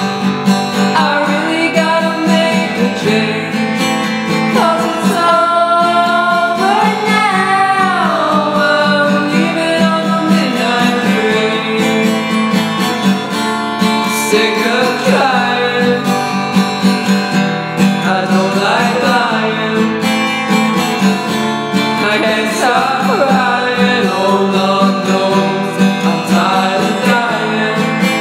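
Instrumental passage of a dream-pop song: acoustic guitar strummed in a steady rhythm, with a melody that slides up and down between notes above it.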